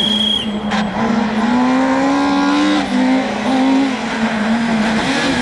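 Rally car engine running hard at high revs, its pitch climbing and then dropping back in several quick steps as it shifts gears, with one sharp crack about a second in.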